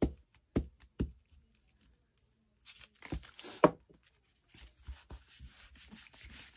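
Book-page paper being folded and smoothed by hand. Three sharp knocks in the first second, then a burst of crinkling with one sharp crackle as the page is folded down about three seconds in, followed by a steady light rubbing as a hand presses the fold flat.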